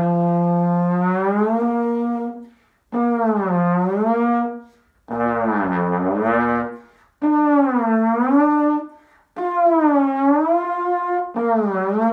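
Trombone playing a series of long notes, each gliding down and back up in pitch in a glissando. The first note rises at the start, and near the end the pitch wavers in quicker dips.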